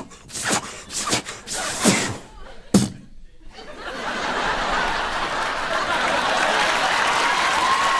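A few short, sharp sounds in the first seconds, then studio audience laughter and applause that swells from about halfway through and holds steady.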